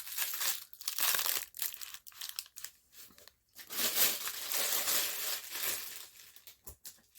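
Plastic packaging crinkling and rustling in irregular bursts as it is handled and opened, with a short lull about three seconds in.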